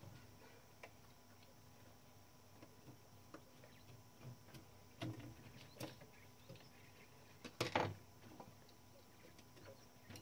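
Faint, scattered clicks and small knocks from a Klein Adler 2 portable typewriter being handled and worked on during repair, with a louder double click about three-quarters through.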